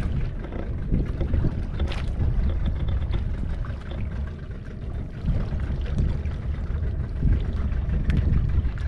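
Low, uneven rumble of wind on the microphone and a boat at sea, with a sharp knock about two seconds in and another near the end.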